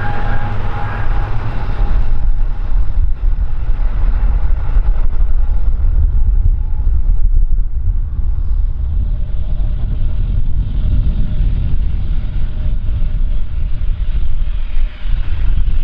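Jet airliner engines rumbling, a deep steady roar, with a whining tone that fades out in the first couple of seconds and a fainter whine coming in about halfway through.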